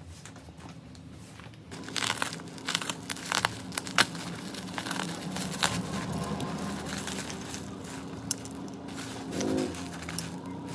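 Irregular crinkling and sharp clicking handling noises over a steady low hum, starting about two seconds in.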